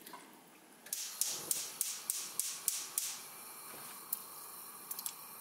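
Wet squelching and slapping of hands massaging marinade into a whole raw chicken in a stainless steel bowl, about three strokes a second for some two seconds. Near the end, a few light clicks as ginger slices are dropped into a pot of water.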